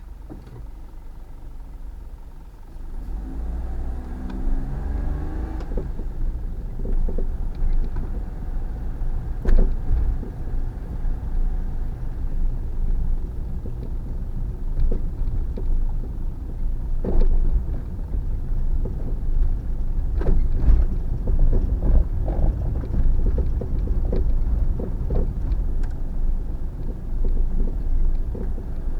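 Suzuki Every kei van on the move: the engine picks up revs over the first few seconds, then a steady road rumble with scattered sharp knocks from the suspension. These knocks are the 'kotokoto' clunking that the owner traced to a worn stabilizer link.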